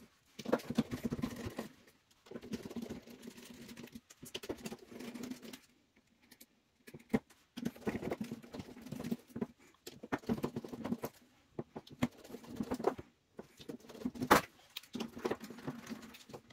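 Clicks, taps and scrapes of work on a metal airsoft gearbox: a Torx screwdriver backing out the shell screws, and small screws and tools being handled and set down, broken by several short silences.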